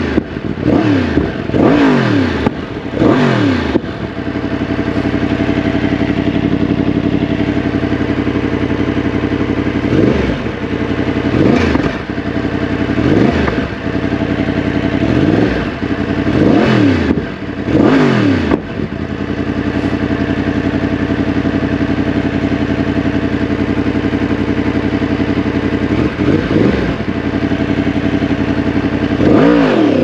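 2023 Yamaha MT-10's crossplane inline-four engine, revving in a series of quick blips whose pitch rises and falls, between stretches of steady running. Near the end it climbs again as the bike accelerates.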